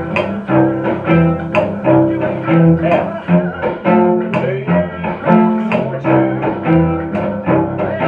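Cello playing a rhythmic blues accompaniment in chords, bowed double stops broken up by percussive bow 'chops' at a steady beat.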